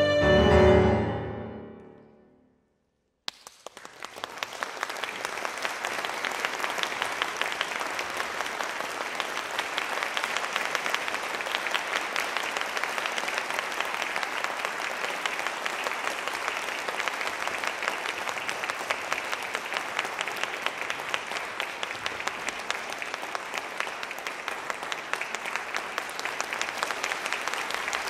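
The final chord of an alto saxophone (Yamaha YAS-875EXG) and piano rings and dies away into a moment of silence. About three seconds in, audience applause breaks out suddenly and goes on steadily.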